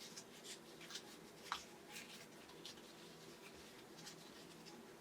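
Faint rustling and scattered light scuffs of a small suede pouch being handled and turned inside out, with one slightly louder scrape about a second and a half in.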